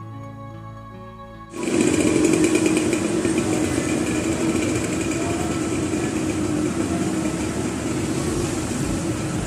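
Soft background music that cuts off about a second and a half in, giving way to a loud, steady mechanical rattle with a low hum from a motor running close by on the street.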